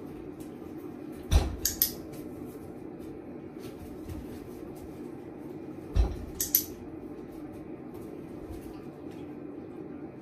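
Mesh office chair creaking and clunking twice as a person's weight comes off and back onto the seat: each time a low thump followed by two or three sharp squeaks.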